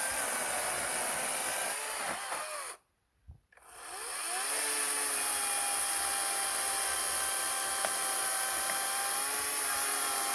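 Chainsaw cutting into a dead tree, running steadily at high revs. About three seconds in it drops off and goes briefly silent, then revs back up and runs steadily again.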